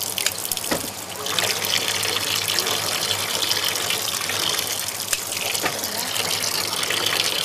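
Tap water running steadily into a stainless steel sink, splashing onto water pooled in the basin, with a few light knocks.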